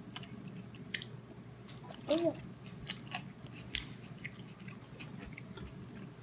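A baby chewing and smacking her lips, soft wet mouth clicks about once a second, with one brief high squeak about two seconds in.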